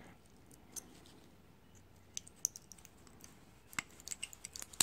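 Screwdriver tip levering under the spot-welded metal connector plate on a cell of a Makita lithium-ion battery pack, working the welds loose: scattered small, sharp metallic clicks that come faster in the last second, the loudest at the very end.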